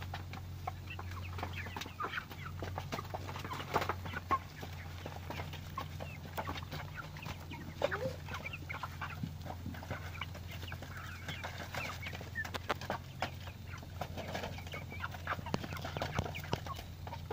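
A flock of naked-neck chickens clucking, many short scattered clucks and calls over a steady low hum.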